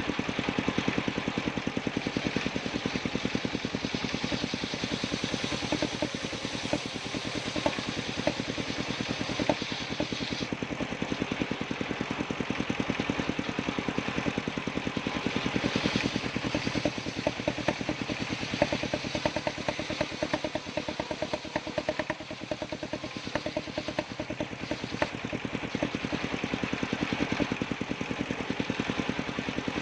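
Engine driving a circular-saw wood-cutting machine, running steadily with an even, rapid beat.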